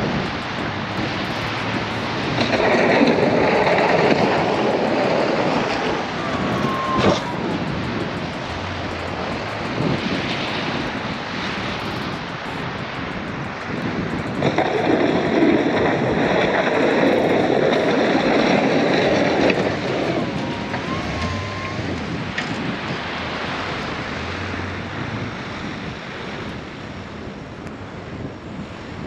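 Wind rushing over the microphone, swelling in two stronger gusts.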